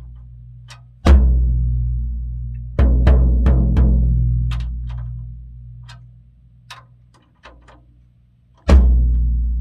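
Tama drums with Evans heads: single hits on a low drum, each left to ring out and die away over several seconds. The hits come about a second in, near three seconds in (followed by a quick flurry of lighter strokes), and again near the end, with faint light ticks in between.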